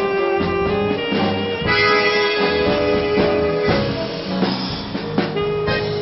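Live vintage dance band playing a tango, with sustained held notes over a rhythmic accompaniment.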